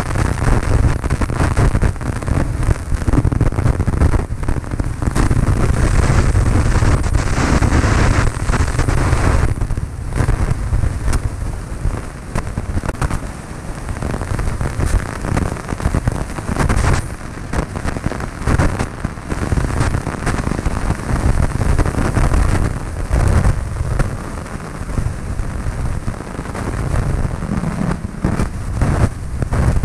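Cessna 152 cabin noise: the engine and airflow make a loud, steady rush, broken by constant crackling and buffeting on the microphone.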